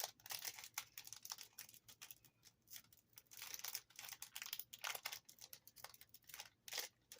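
Foil wrapper of a Yu-Gi-Oh booster pack crinkling in irregular quick rustles as sweaty fingers struggle to tear it open.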